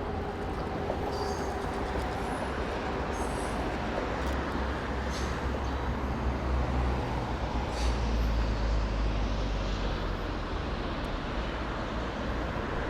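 Street traffic noise: a steady hiss with a low vehicle rumble that swells in the middle as heavy traffic passes. A few short faint clicks sound over it.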